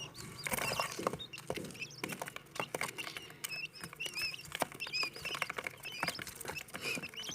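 Quail chicks peeping: many short, high chirps overlapping throughout, over a patter of small clicks and scratches.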